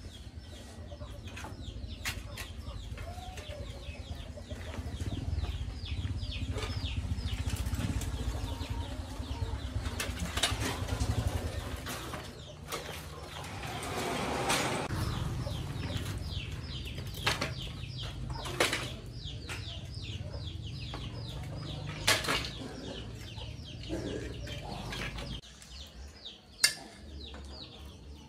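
A rusted old bicycle clanking and rattling as it is dragged out and handled, its metal frame and loose parts knocking, with one loud sharp knock near the end as it is set on concrete.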